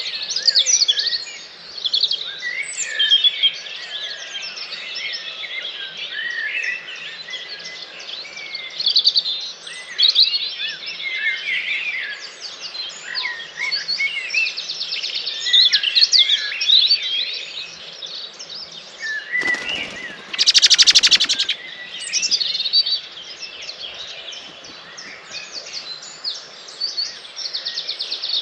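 Dawn chorus: many songbirds singing at once, their songs and chirps overlapping. About two-thirds of the way through, a loud burst of rapid pulses lasts about two seconds.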